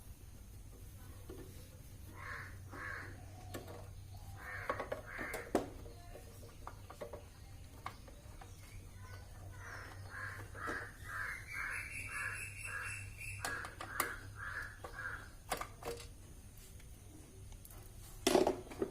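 Crows cawing: a couple of pairs of caws, then a run of about ten caws at roughly two a second in the middle. A few sharp clicks and a louder knock near the end, over a low steady hum.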